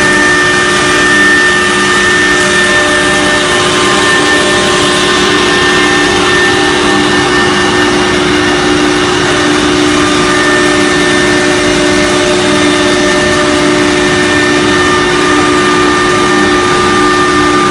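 CNC router's 6 kW HSD spindle running steadily: a constant whine with several held tones over a loud, even rushing noise.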